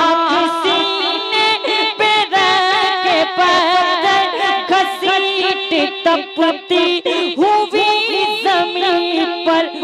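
A naat reciter singing into a PA microphone, drawing out long sung phrases with many turns in pitch and no pauses.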